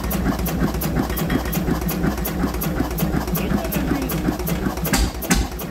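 Linke-Hofmann evaporator-cooled stationary engine of about 5,000 cc running steadily, with even beats about four a second and a louder bang near the end.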